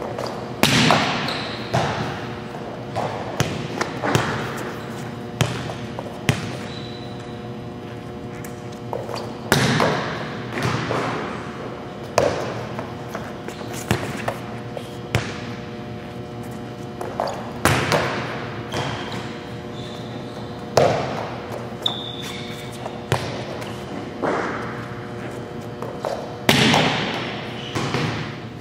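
Volleyballs being served and passed: repeated sharp slaps of hands and forearms on the ball and the ball hitting the court, every second or two, echoing in a large gym. A steady hum sits underneath, with a few brief high-pitched squeaks.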